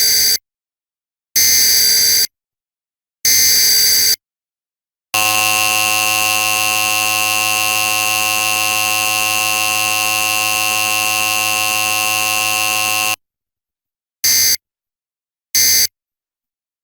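Emergency Alert System broadcast tones. Three buzzy SAME header data bursts of about a second each, a second apart, are followed by the two-tone attention signal held steady for about eight seconds. Then come short end-of-message bursts with no spoken test message in between, so the relay skipped the audio message.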